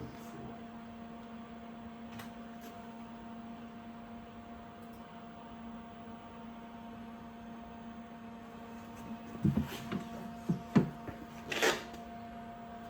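Steady electrical hum from a powered CNC lathe standing idle, not cutting. About three seconds before the end comes a short cluster of knocks and clicks.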